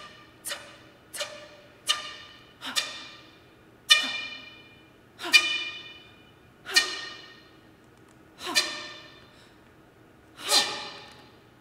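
Soprano voice and flute in contemporary chamber music: a string of short, sharp accented attacks that each die away quickly, some ending in a falling, sigh-like slide. They come about every half second at first, then slow to about one every one and a half to two seconds.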